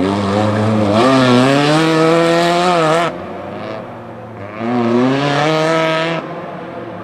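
Autocross car's engine revving hard under acceleration, its pitch rising and then holding, heard in two loud spells that each cut off suddenly.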